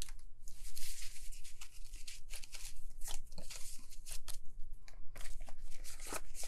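Paper banknotes and a clear plastic zippered cash envelope being handled: a run of rustles, crinkles and short clicks as bills are slid in and the envelope is worked.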